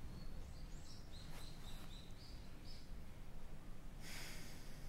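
Birds chirping a run of short, high notes that step up and down in pitch over a low, steady background. A soft rustle starts about four seconds in.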